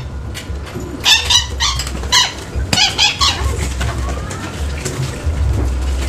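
Black-winged stilt giving bursts of short, sharp yapping calls: a quick run of them about a second in and another around two to three seconds in. A single sharp click comes near the middle, over a low steady rumble.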